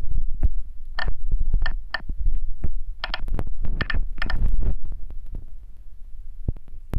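Fingertip taps and handling thumps on a smartphone, close to its own microphone, while digits are typed into a CNC simulator app's on-screen keypad. A low rumble runs throughout, with a series of short, sharp clicks between about one and four and a half seconds in.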